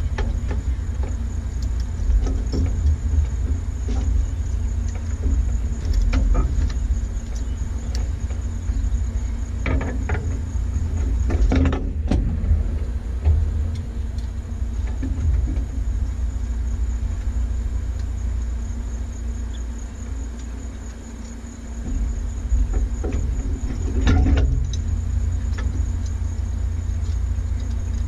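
Light aircraft engine idling on the ground, a steady low rumble heard through a camera mounted on the airframe. It dips briefly about three-quarters of the way through, and a few sharp knocks come through.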